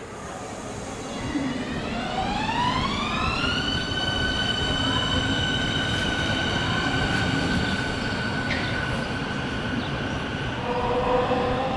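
Electric train pulling away, its motor whine rising in pitch over about two seconds and then holding a steady high tone over the low rumble of the train. Near the end a lower set of tones comes in.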